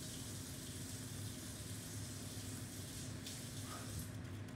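Quiet room tone: a steady low hum under a faint even hiss, with no distinct sound events.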